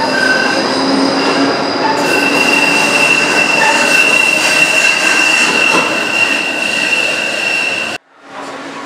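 Tram running through an underground station and tunnel with its steel wheels squealing on the rails: a steady high screech over the rumble of the running gear. The screech grows stronger about two seconds in and cuts off abruptly near the end.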